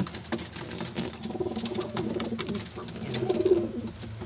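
Racing pigeon cooing in low, warbling notes that swell loudest about three seconds in, over light clicks of a beak pecking seed in a plastic feed cup.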